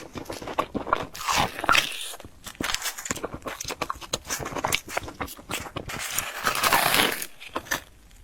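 Biting into and chewing crisp fried bread: a steady run of small crunches and clicks, with two louder crunchy stretches, one about a second in and another near the end.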